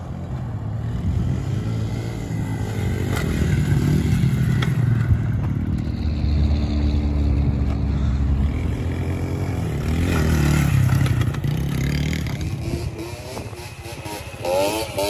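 Dirt bike engine revving up and down as it is ridden over a bumpy dirt trail, growing louder as it approaches and fading near the end.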